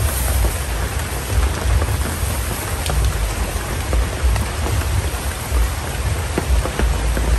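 Steady rain falling, with an uneven low rumble underneath.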